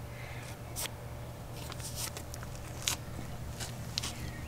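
Faint outdoor background: a steady low hum with a few scattered sharp clicks and ticks.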